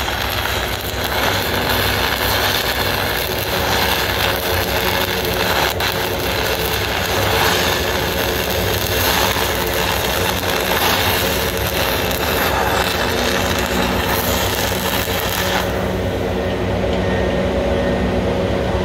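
Stick-welding arc crackling steadily as a 5/32 electrode burns through the zinc galvanizing on structural steel. The arc cuts off about three seconds before the end, leaving a steady low mechanical hum that runs underneath throughout.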